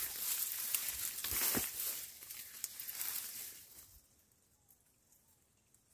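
Capiaçu elephant grass leaves and stalks rustling and crackling as someone pushes through the dense, partly dry stand, the blades brushing close past the microphone. The rustling stops about four seconds in.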